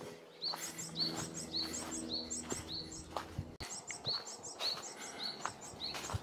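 A small songbird singing a fast, repeated high-pitched phrase, the same short figure over and over, over a faint low background hum.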